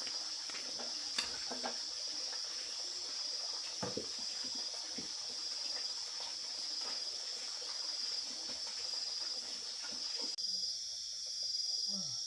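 Insects, crickets among them, trilling steadily in a high, pulsing chorus, with scattered light clicks and knocks. The background changes abruptly about ten seconds in.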